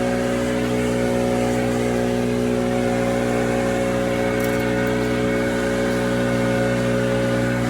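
Diesel engine of a Cat 299D3 compact track loader running at a steady, unchanging speed.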